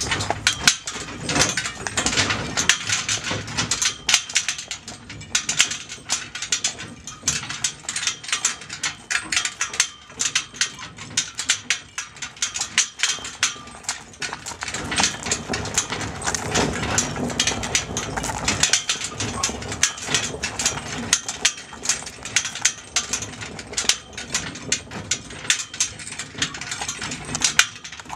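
Metal trace chains of a Clydesdale's cart harness jangling continuously, a dense run of clinks and rattles, as the horse pulls a small cart in shafts; the traces are noisy, knocking against the sides.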